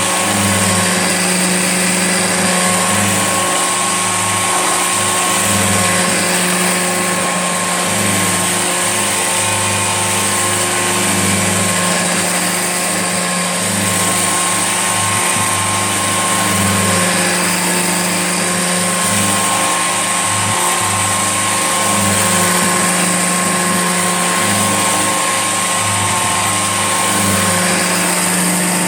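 Old Hoover Junior upright vacuum cleaner running steadily, its motor giving a constant high whine over a low hum.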